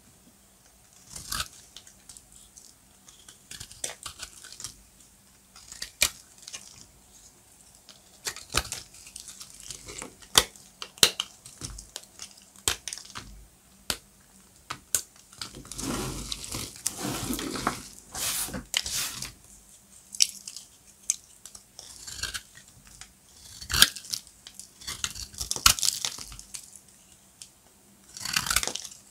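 Dry, crumbly soap being cut and crunched: a string of crisp separate cracks, with longer stretches of crumbling crunch around the middle and again near the end.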